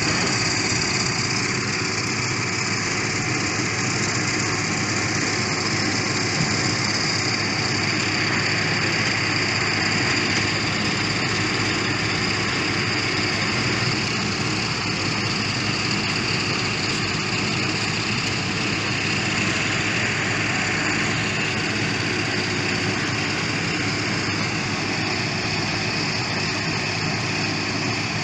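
Heavy construction machinery's diesel engine running steadily, a continuous drone with no breaks.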